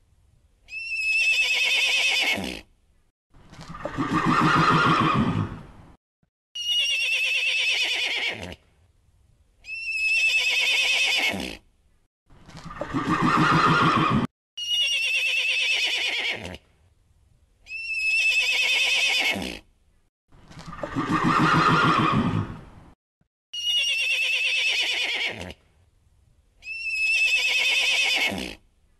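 A horse neighing over and over: about ten whinnies, each about two seconds long, repeating at an even pace with short silent gaps between them. Some whinnies are higher-pitched than others.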